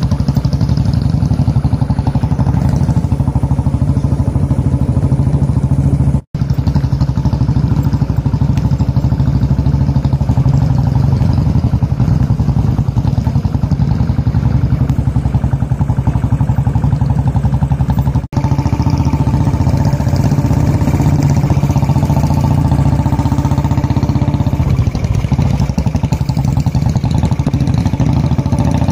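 Motorcycle engine running steadily at low speed on a rough dirt forest track, heard from on the bike. The sound drops out for a split second twice, about six and eighteen seconds in.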